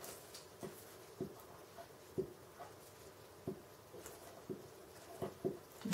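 Glue stick rubbed along the edge of a small kraft-paper strip on a wooden tabletop: faint scratchy strokes and a scatter of small soft taps.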